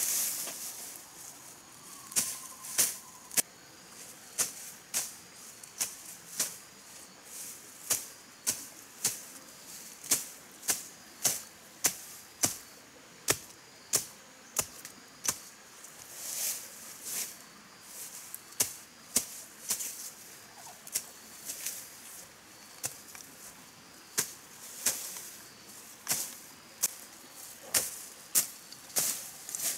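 Machete chopping through ferns and undergrowth at ground level: a long series of sharp strikes, roughly one or two a second, with leaves rustling between some of them.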